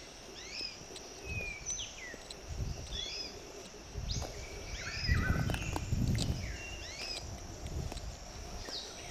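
Several songbirds chirping with short, repeated, sliding notes throughout, over footsteps and brushing through dry reeds and grass, heaviest around the middle.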